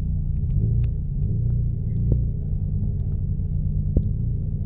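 Low, steady rumble of a 4x4 crawling over a rocky dirt track, heard inside the cabin, with a few sharp knocks and rattles. The loudest knock comes about four seconds in.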